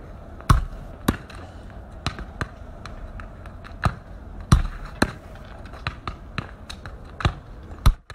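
A football being kicked repeatedly on a paved surface: a dozen or so sharp thuds at irregular intervals of about half a second to a second and a half, several of them much louder than the rest, one of the loudest just before the end.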